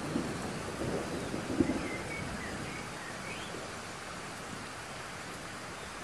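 Rain falling onto pond water, an even hiss of drops splashing on the surface, with a few louder low thuds in the first two seconds.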